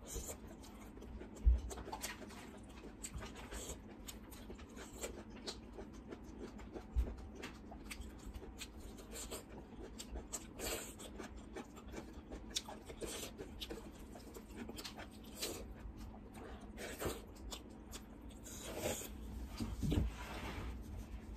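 Close-miked chewing and mouth sounds of a person eating rice and vegetables by hand: many small irregular clicks with a few low knocks, and a rustle of tissue near the end.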